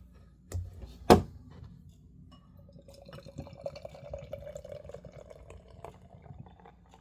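A single sharp click about a second in as the beer is opened, then golden ale pouring into a glass for about three seconds.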